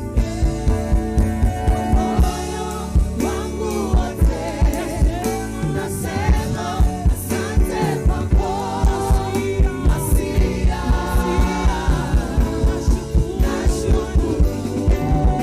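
Gospel band and singers performing a worship song: sung melody over bass and a steady kick-drum beat. The drums drop out for a couple of seconds near the start, then the beat comes back.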